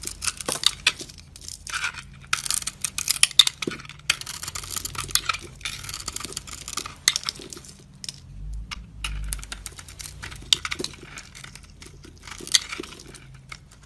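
Knife cutting into dry soap: crisp, crackly scraping in uneven stretches, with sharp clicks and snaps as pieces break off.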